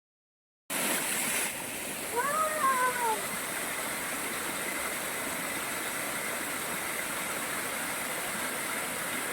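Small waterfall running steadily, an even rush of water. About two seconds in, a single short high call rises and falls over about a second.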